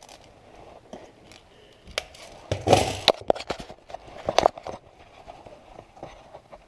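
Scattered sharp clicks and knocks, bunched in the middle, with a louder rattling cluster about three seconds in.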